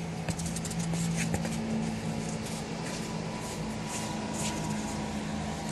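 Scattered ball kicks and shoe scuffs on artificial turf during a five-a-side football game, as short sharp knocks over a steady low hum.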